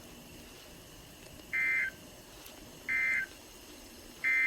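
Emergency Alert System End-of-Message code: three short bursts of buzzy digital data tones, evenly spaced about a second and a half apart, marking the end of the warning broadcast.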